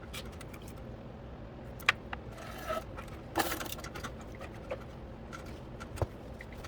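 Scattered light clicks and knocks with two short scrapes, one about two and a half seconds in and one about three and a half seconds in, over a steady low hum: small handling noises of tools or ware being moved.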